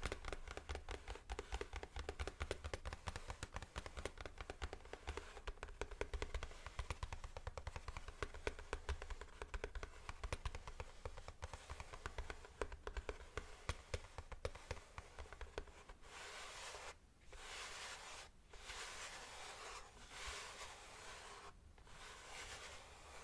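Rapid tapping and typing on keyboard keys, a dense run of small clicks. About sixteen seconds in it changes to a scratchy rubbing sound that comes in stretches with short breaks, as of hands brushing over the keyboard.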